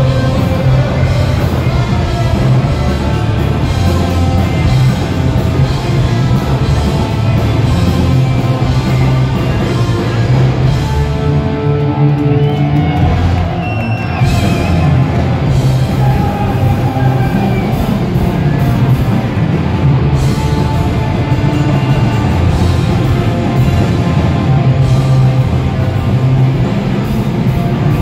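Skate-punk band playing live through a hall PA: distorted guitars, bass, drums and shouted vocals. About eleven seconds in the band drops to a sparser passage, and the full band comes back in about three seconds later.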